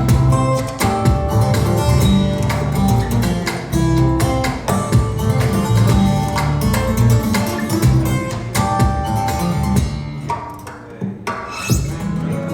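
Recorded music played over Børresen Acoustics loudspeakers: plucked guitar over percussion, with a brief quieter passage near the end.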